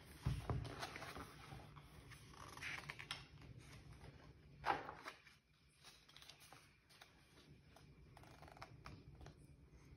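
Pages of a picture book being turned and handled: soft paper rustling, with a low thump at the start and one sharper page flick about halfway through.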